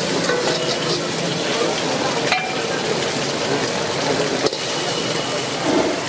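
Food sizzling as it is stir-fried in a hot pan, with a couple of sharp clicks of a utensil striking the pan.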